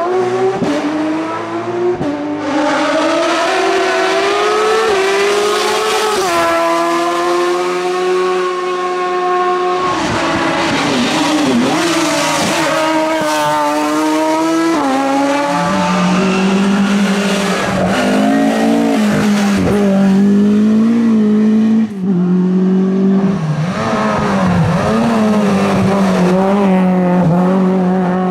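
Race car engines at full load, revving up and dropping sharply again and again through gear changes and corners. From about halfway through, a second engine is heard at the same time.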